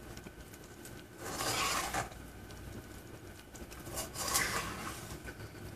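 Raw shrimp being stirred and tossed with cornstarch and spices in a stainless steel mixing bowl: soft, wet scraping and rubbing in two bouts, one about a second in and one about four seconds in.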